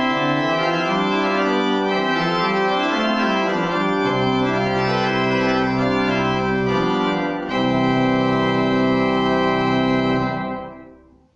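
Church pipe organ playing the closing bars of the prelude in sustained chords. A short break comes about seven and a half seconds in, then a final held chord that fades out near the end.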